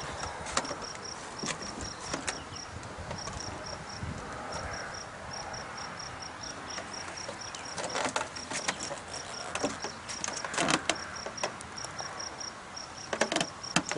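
Insects chirping steadily in short, evenly repeated high-pitched pulses, with a few sharp clicks and knocks in the second half.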